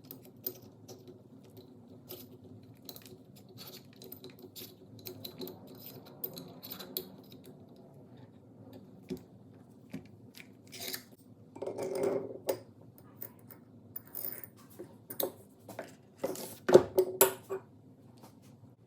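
Small metal parts clicking, tapping and clinking as vise parts are handled, with louder clunks about twelve and seventeen seconds in.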